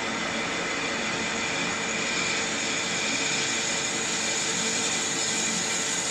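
Metal lathe running with the tool taking a facing cut across a small disc held in the chuck: a steady machine whine over the hiss of the cut.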